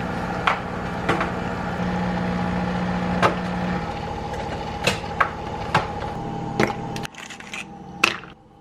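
Electric pottery wheel running with a steady motor hum while clay is thrown, with scattered sharp clicks and knocks. The hum stops about seven seconds in.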